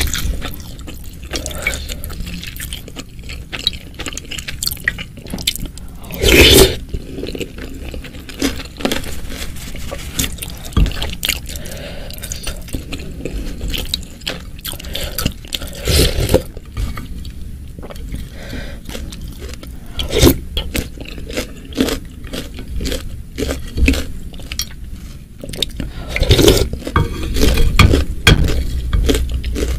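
Close-miked eating sounds of spicy boiled wonton soup: a wooden spoon scrapes and clicks against a glass baking dish as broth is scooped, with mouth sounds of sipping and chewing. Several louder sips or slurps stand out above the steady small clicks.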